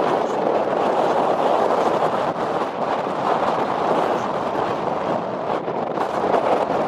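Wind blowing across the microphone: a loud, steady rushing.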